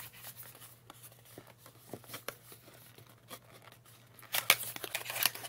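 A small cardboard cosmetics box handled and opened by hand: light taps, scrapes and paper rustles, turning louder and busier about four seconds in as the box is opened.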